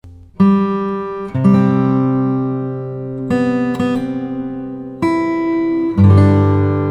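Background music: acoustic guitar strumming a slow sequence of chords, each one struck and left to ring.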